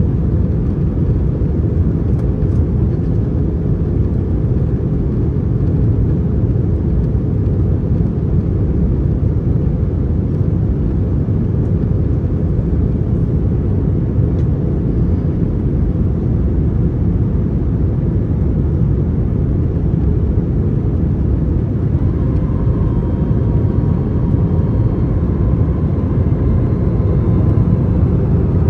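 Steady cabin noise inside an Airbus A321 in flight: a low rumble of airflow and engines. A faint whining tone joins in about two-thirds of the way through.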